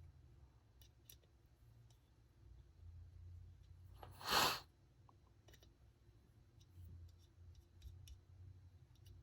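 Light clicks and taps of a small Torx driver and tiny screws being worked on a Strider SMF folding knife's lock bar while a stabilizer insert is fitted, with one short, louder rush of noise about four seconds in.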